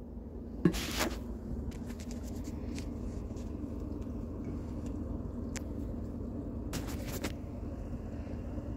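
A steady low hum with handling noises over it: a sharp click about two-thirds of a second in, a brief rustle about a second in, a few scattered ticks, and a short burst of rustling around seven seconds in.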